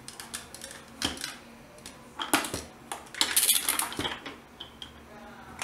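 Hard plastic parts of a toy play-dough press clicking and clattering as they are handled and fitted together, with a longer rattle a little past the middle.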